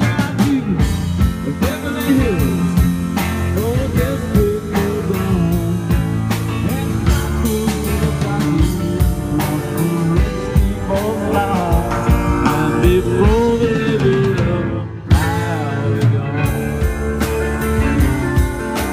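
Live rock band playing loudly: electric guitars over a drum kit with a steady beat. The music breaks off briefly about fifteen seconds in, then comes back in on a hard accent.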